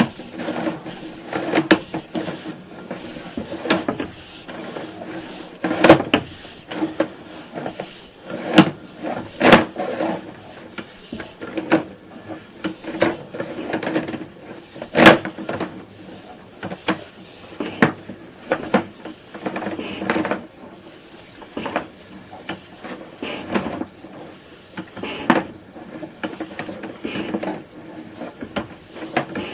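Irregular knocks and clunks of plumbing equipment being handled, coming every second or so, with the loudest about 6, 9.5 and 15 seconds in, over a faint steady hum.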